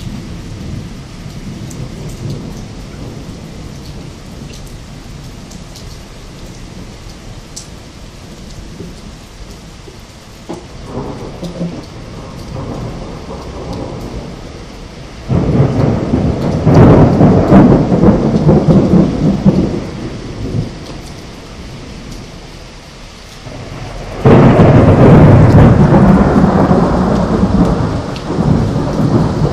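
Thunder: a low, steady rumble that builds, then two sudden loud thunderclaps, one about halfway through and one near the end, each rumbling on for several seconds.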